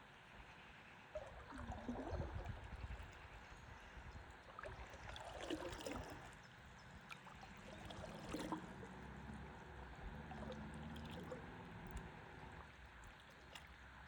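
Faint river water gurgling and lapping around a stand-up paddleboard, with a few soft splashes a few seconds apart.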